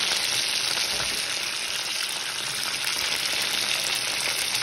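Chicken pieces frying in vegetable oil in a pot: a steady sizzle of bubbling oil.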